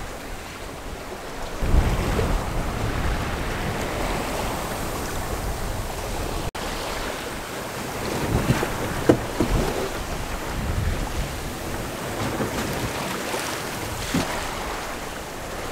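Wind buffeting the microphone over the rush of water along the hull of a Reinke 10M sailing yacht under sail, with stronger gusts about two seconds in and around nine seconds.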